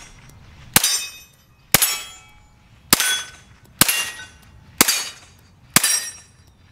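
Six 9mm gunshots from a Glock 19 fired through the 16-inch barrel of a Meta Tactical Apex bullpup conversion kit, evenly paced about one a second, each followed by a short ringing tail.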